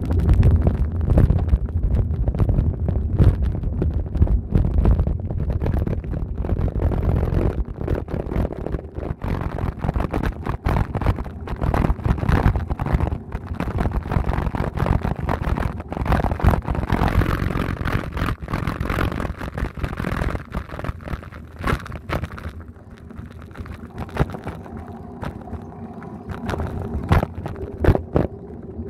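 Bicycle rolling over brick paving: a rumble of tyres and wind on the microphone with frequent rattling clicks from the bumps, growing quieter for the last few seconds.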